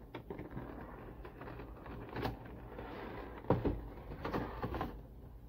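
Cardboard box being opened by hand: the flap and lid lifted, cardboard sliding and scraping against cardboard, with a couple of soft knocks about two and three and a half seconds in.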